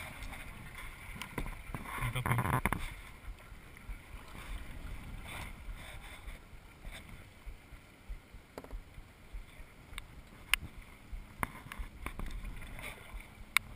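Kayak being paddled: irregular water splashing and dripping from the paddle, with a few short sharp knocks, one at about ten and a half seconds and one near the end. A brief voice sound about two seconds in is the loudest moment.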